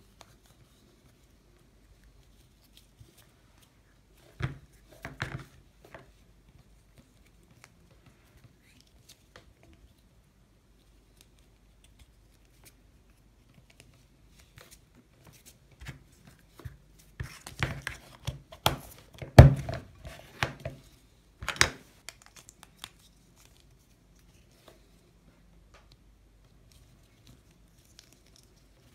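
Plastic Play-Doh moulds and modelling dough being handled: scattered clicks, knocks and rustles. A few come about five seconds in, then a busier run from about fifteen to twenty-two seconds in, with one sharp knock the loudest.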